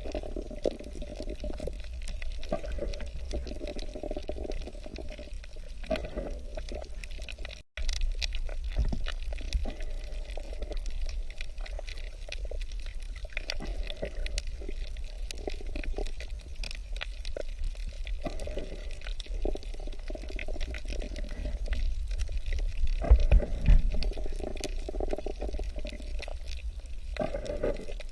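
Water gurgling and sloshing over a low rumble, with many small clicks, cutting out briefly to silence about seven seconds in.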